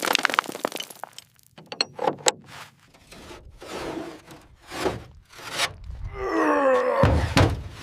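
Metal parts and rigging being handled on a helicopter airframe: a run of clinks and knocks, then a creaking scrape that falls in pitch about six seconds in, ending in a heavy thud.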